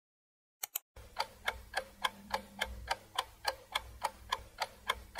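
Ticking-clock sound effect counting down the answer time, a steady run of sharp ticks about three to four a second that starts about a second in after two light clicks.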